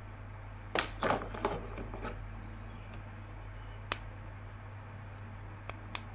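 Faint scattered clicks and rustles of hands handling a plastic action figure, over a low steady hum.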